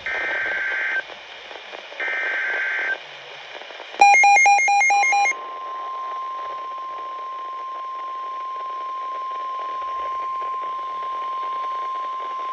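NOAA Weather Radio alert sequence. First come the last two one-second bursts of warbling SAME digital header data, then a quick run of beeps, then the steady single-pitch Weather Radio warning alarm tone, held for about eight seconds. The sequence heralds a new warning broadcast.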